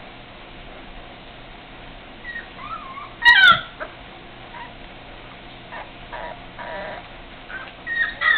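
Four-week-old Springer Spaniel puppies whining and squeaking in short high calls that slide up and down, with one loud squeal a little after three seconds in and another cluster of squeaks near the end.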